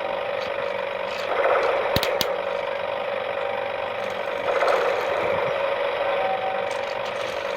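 Toy mini tractor's small electric motor and plastic gears whirring steadily as it runs, swelling twice, with a couple of sharp clicks about two seconds in.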